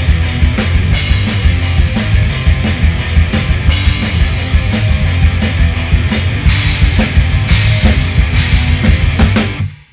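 Loud outro rock music with a drum kit beating steadily and crashing cymbals toward the end, fading out quickly just before the close.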